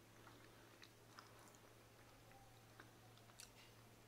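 Faint chewing of a mouthful of noodles, with a few light clicks, over a low steady hum.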